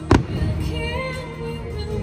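A firework shell bursts with a single sharp bang just after the start, over the fireworks show's music with singing.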